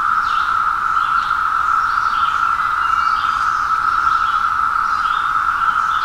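Chorus of Brood X periodical cicadas (17-year cicadas): the loud, steady drone of countless males calling at once to attract females.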